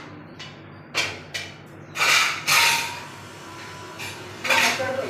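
Steel cookware being handled on a gas stove: a steel bowl and kadhai clattering and scraping against each other and the burner, in several loud bursts, one with a brief metallic ring.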